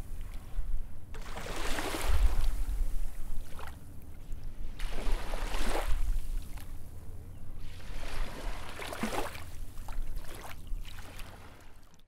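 Rushing, wave-like swells of water noise, about four of them a few seconds apart, over a low rumble. This is the sound design of a logo animation, and it fades away near the end.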